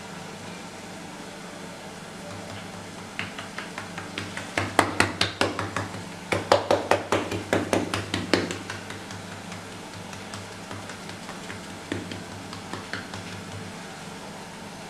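Hands pressing and patting out a thin sheet of pizza dough on a granite worktop, making a quick run of sharp taps, about five a second, a few seconds in, with a few more later, over a steady low hum.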